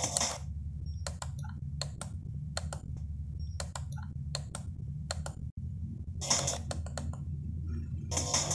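Irregular clicks from the H-Buster HBD-7200MP car stereo's rotary adjust knob as it is turned step by step through the bass settings, about a dozen clicks in all. A steady low bass from the music playing through the stereo runs underneath.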